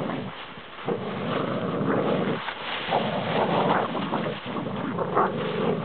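American Staffordshire terriers growling and scuffling through dry leaves as they tug at a rope toy, a rough, uneven noise with wind on the microphone.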